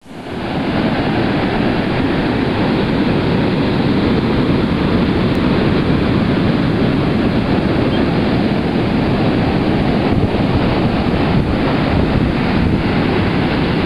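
Ocean surf breaking and washing up a sandy beach, a steady rush of waves with wind buffeting the microphone.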